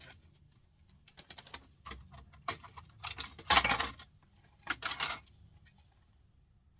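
Clicking and rattling of printer parts being handled during a teardown, with a louder scraping rustle about three and a half seconds in and another shorter one near five seconds.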